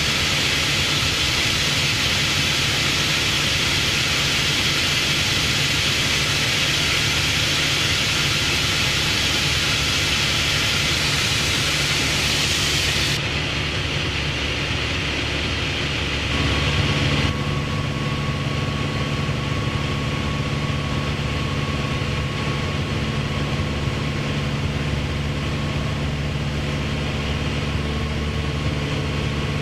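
Light aircraft's piston engine and airflow noise heard steadily in the cockpit. About 13 seconds in the hiss abruptly loses its top end, and again a few seconds later, leaving a steadier engine hum with a few fixed tones standing out.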